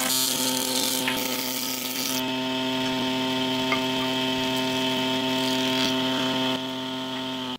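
Thickness planer running as a wooden batten feeds through its cutterhead: a steady motor whine with a rushing cutting noise, harsher in the first two seconds, then evening out as the board passes through.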